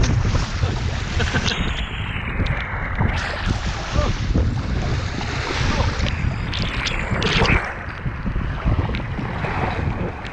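Rushing water on a water-park slide, with wind buffeting the microphone in a heavy low rumble.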